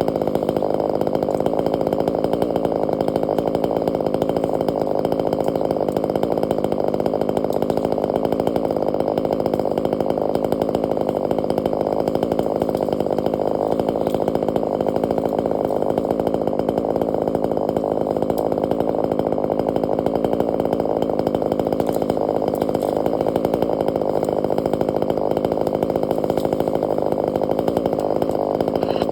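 Chainsaw engine running at a steady high speed, its pitch and loudness holding even throughout.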